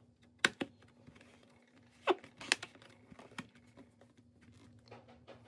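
Aluminium bottom cover of a MacBook Pro 13 being pressed down onto the chassis: several sharp clicks spread over a few seconds as it seats.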